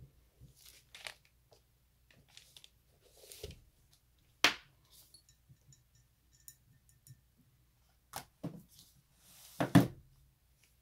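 Hands handling painting supplies on a desk: scattered rustles and small clicks, a sharp knock about four seconds in, and a louder thump with rustling near the end.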